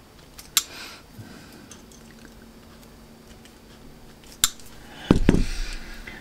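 Wire-end ferrule crimping pliers clicking sharply twice, about four seconds apart, as a ferrule is crimped onto a piece of wire. About five seconds in there is a louder dull thump with handling noise.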